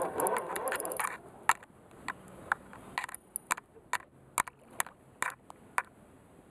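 Fishing reel on a bent rod clicking: a short rattle in the first second, then sharp single clicks about twice a second.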